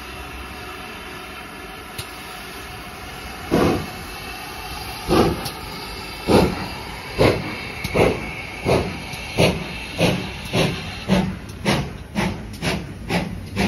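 GWR Manor class steam locomotive 7822 Foxcote Manor pulling away: steam hissing steadily, then its exhaust beats starting about three and a half seconds in and quickening from about one a second to about two a second as the train gathers speed.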